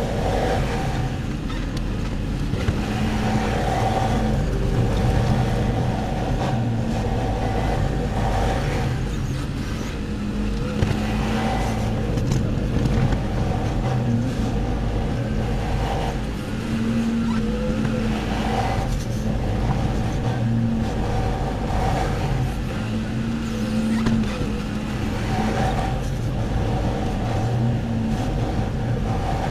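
Farm loader's engine working hard, revving up and easing off again every few seconds in a repeating cycle, as it loads a muck spreader.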